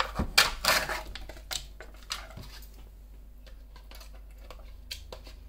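Clicks and knocks of kitchen containers and a spoon being handled as a yogurt cup is opened and its yogurt scooped into a blender jar. A burst of clatter comes in the first second, then scattered fainter clicks.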